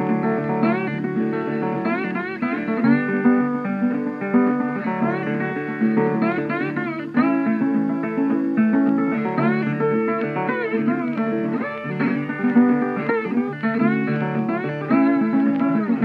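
Instrumental music: a melody with frequent sliding, bending notes over a steady lower accompaniment.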